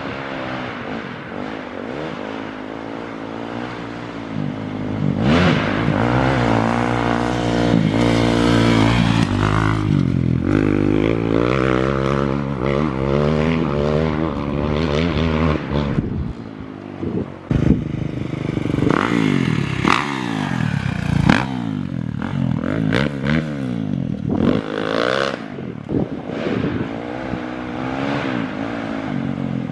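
2021 Kawasaki KX450X single-cylinder four-stroke dirt bike engine, breathing through an aftermarket FMF 4.1 RCT exhaust, being revved hard. Its pitch climbs and falls in long pulls through the middle. In the second half come a string of quick, short rev blips.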